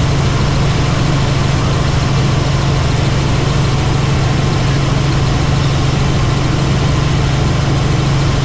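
Helicopter in flight: steady engine and rotor noise with a strong, even low hum.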